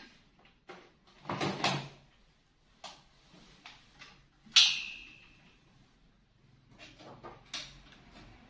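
Clicks, knocks and rustling from cables and connectors being handled and plugged into the back of a desktop computer tower. About halfway through comes the loudest sound, a sharp metallic clink that rings briefly.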